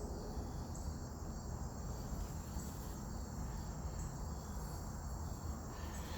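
Steady high-pitched insect trilling, with a low, even background rumble beneath it.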